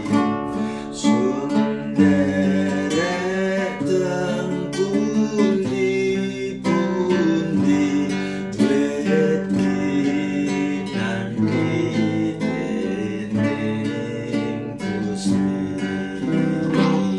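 A man singing in Javanese while accompanying himself on a nylon-string classical guitar, strummed and plucked.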